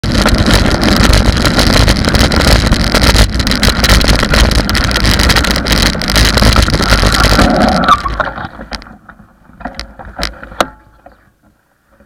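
Loud wind rush and road rumble on a bicycle-mounted camera's microphone while riding at speed. About eight seconds in it drops away to a few light clicks and then fades out.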